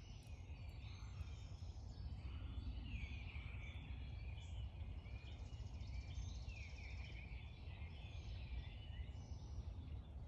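Several birds chirping and calling over one another, many short notes falling in pitch, over a steady low rumble.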